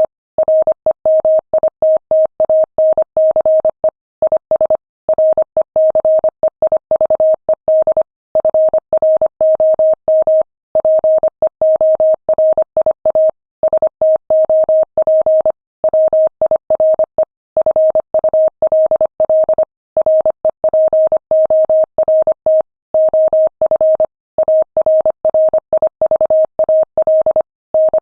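Morse code sent at 25 words per minute: a single steady mid-pitched beep keyed on and off in rapid dots and dashes, with short pauses between letters and words.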